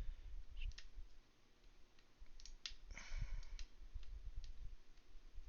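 Lock pick working the pin stack of a Master Lock Magnum M930XKADLJ padlock under tension, giving a few faint, scattered clicks. The picker puts the many clicks down to serrated pins giving false feedback.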